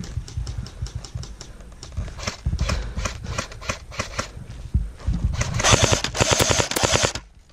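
Electric airsoft guns firing: scattered sharp clicks, then, from a little past halfway, a close, loud burst of rapid shots from a Tokyo Marui M14 airsoft rifle that cuts off suddenly near the end.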